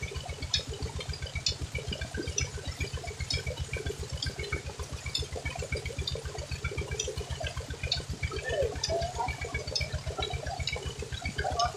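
Tubewell water gushing from a pipe outlet and splashing onto a rope-strung charpai and a man sitting in the stream. A fast, even low pulse runs underneath.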